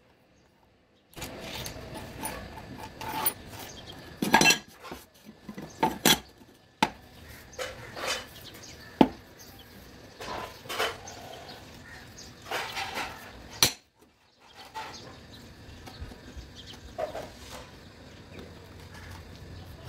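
Pieces of thin cut steel sheet clinking and clattering as they are handled and laid down on a worktable, with a ferrite ring magnet from an old speaker set down among them. A string of sharp metallic knocks begins about a second in and runs to about two-thirds of the way through, then only softer handling noise.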